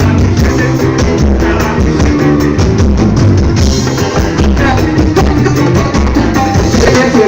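Loud music with singing over a steady drum beat and a heavy bass line.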